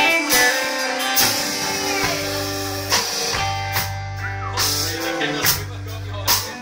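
Live rock band playing loudly: electric guitars, bass guitar and a drum kit with repeated cymbal hits.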